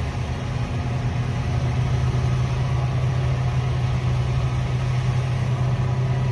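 Steady low drone of heavy diesel engines running, from a large mining excavator and the haul truck it is loading.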